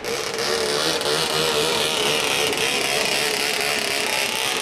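Longtail racing boat's engine running flat out at a steady high pitch as the boat skims past, with a high hiss alongside.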